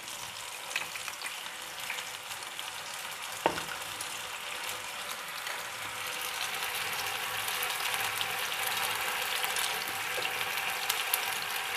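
Ketchup-and-garlic sauce sizzling in a nonstick frying pan as a spatula stirs it, with a single knock about three and a half seconds in. The sizzle grows a little louder in the second half.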